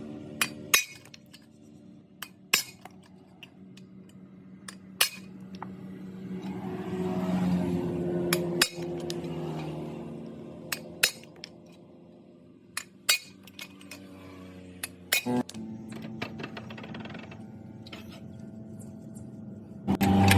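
Background music, with sharp metallic clinks at irregular intervals, about a dozen in all.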